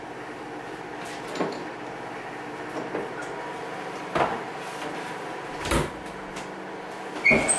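A few separate knocks and clunks of kitchen handling, two or three seconds apart, the last with a brief high ring, over a steady low hum and a faint hiss.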